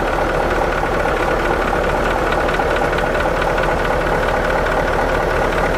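Diesel truck engine idling with a steady, rapid ticking during an injector cut-out test, the lines loosened one at a time. The ticking is taken for a weak injector, one that changes the idle less than the rest when cracked loose.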